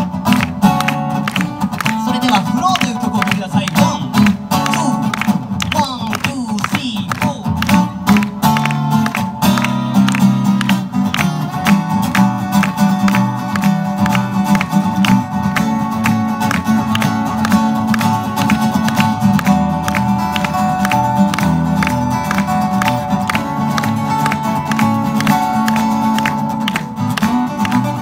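Two acoustic guitars playing an instrumental duet live, notes plucked in a quick, even rhythm over held chords.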